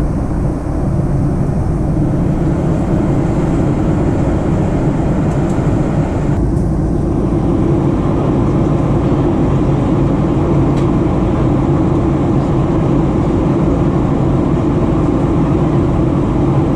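Steady cabin drone of a Boeing 737-800 in flight, heard from a window seat: the hum of its CFM56 turbofan engines mixed with airflow noise. The higher hiss drops a little about six and a half seconds in.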